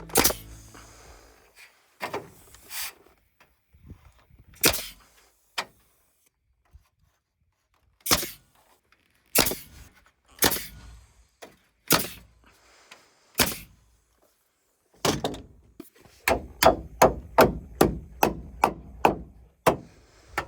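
Sharp knocks on wood lumber, spaced a second or two apart, then a fast run of blows at about three a second over the last few seconds, like nails being driven into framing lumber.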